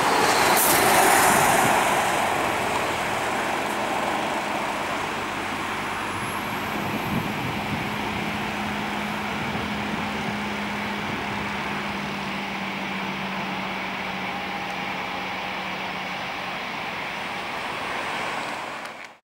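Airbus A220-300's twin Pratt & Whitney PW1500G geared turbofans at takeoff thrust: a steady jet roar as the airliner lifts off and climbs away. It is loudest about a second in, then holds with a faint steady low drone underneath, and cuts off abruptly near the end.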